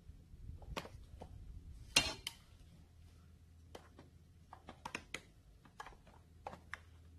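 Scattered small clicks and clinks of hand tools, a screwdriver and needle-nose pliers, on a string trimmer's plastic housing and carburetor parts. There is one louder clattering scrape about two seconds in, then a run of light ticks.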